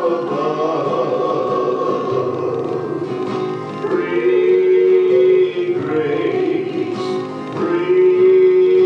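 A gospel song being sung with instrumental accompaniment, the voices holding long notes.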